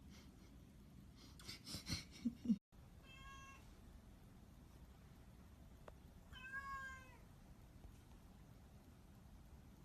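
A domestic cat meowing twice: a short, even-pitched meow about three seconds in and a longer one around seven seconds. Before them come a few soft knocks and rustles, the loudest moments.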